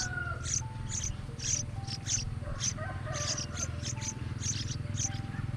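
Rapid high-pitched bird chirping, several short chirps a second and uneven in spacing, over soft background music with held notes and a steady low hum.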